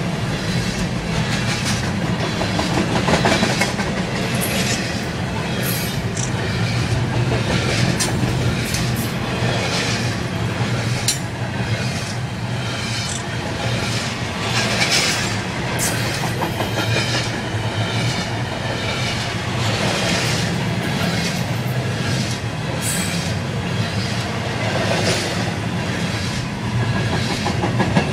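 Double-stack container freight train rolling past: a steady rumble of the cars with irregular clicks of wheels over rail joints, heard from inside a car.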